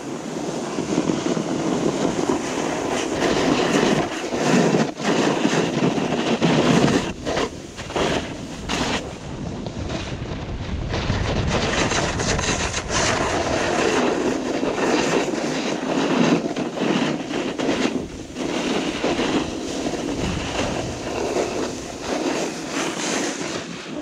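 Wind rushing over the camera microphone and the hiss and scrape of edges on snow during a fast run down a groomed ski slope, surging and rattling with each turn.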